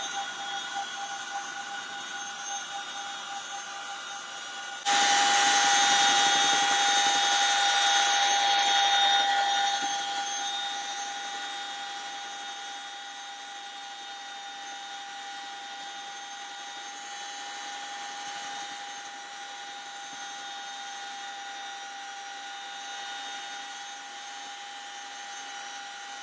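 CH-47 Chinook helicopter's twin turboshaft engines and tandem rotors running steadily in flight: a held whining tone over a rushing noise, heard from inside the cabin over the open floor hatch. About five seconds in it suddenly gets much louder, then eases back down over the next several seconds.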